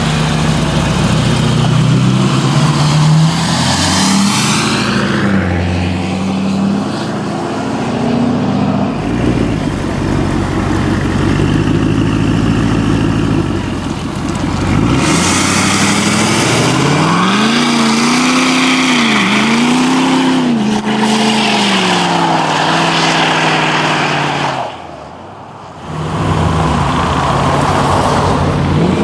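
V8 muscle car engines running loudly, with one car revving up and down several times in quick succession in the second half.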